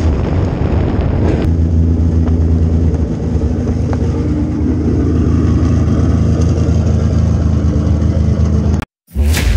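Crate late model race car's V8 engine heard from inside the cockpit, easing off about a second and a half in and then idling steadily. Near the end the sound cuts off for a moment and a loud whoosh starts.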